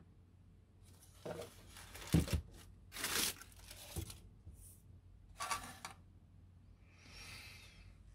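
Handling noise of small plastic telescope-kit parts over a paper sheet: several short bursts of rustling and scraping, with a knock about two seconds in.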